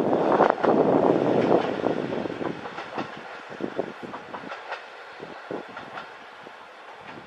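Diesel train passing on the Kyoto Tango Railway, its wheels clacking over the rail joints. Loud for the first two seconds or so, then fading as it moves away, leaving scattered clicks.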